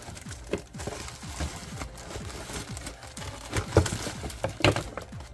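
Cardboard box and packaging being handled and opened: rustling and crinkling with irregular knocks, the loudest a few sharp thumps in the second half.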